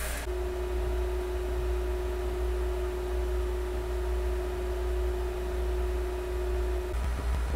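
Anycubic ACE Pro filament box running with its dryer on: a steady low hum with a steady whining tone that stops near the end.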